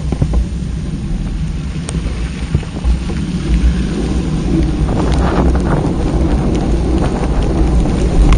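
Wind buffeting the microphone of a JVC Adixxion action camera during a ride, a heavy low rumble with scattered clicks and rattles. It grows a little louder and hissier about halfway through.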